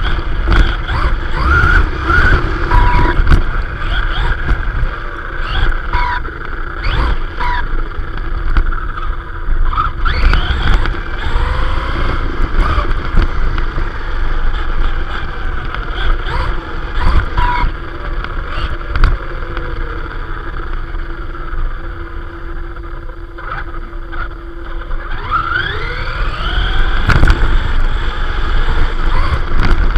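Arrma Vorteks RC car heard from its own onboard camera: tyres rumbling over tarmac with wind on the microphone. The electric motor's whine rises and falls over and over as the throttle is worked.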